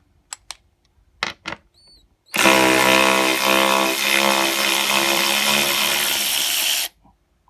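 A few short clicks, then a KIMO 12V cordless electric ratchet's motor runs steadily for about four and a half seconds and stops abruptly. It is backing a large wood bolt out of a board.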